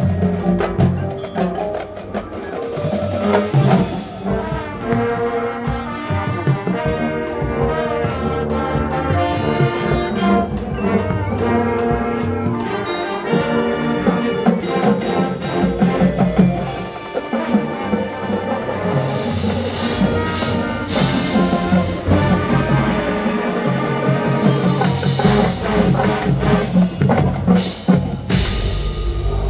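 High school marching band playing: brass section over drumline and front-ensemble percussion, with a loud accented hit near the end.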